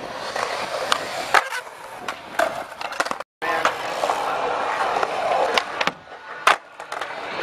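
Skateboard wheels rolling on concrete, with sharp clacks of the board on tricks and landings. A brief gap of silence comes a little before the middle, and the loudest clack comes about six and a half seconds in.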